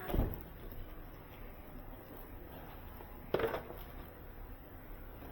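Plastic fittings and packaging from a water softener kit being handled: two brief clatters about three seconds apart, over low room noise.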